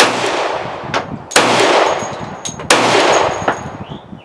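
Three shots from a Glock 20 10mm pistol firing 230-grain hard-cast rounds, evenly spaced about a second and a half apart, each followed by a trailing echo, with small clicks between them. The pistol cycles the heavy loads with no malfunctions.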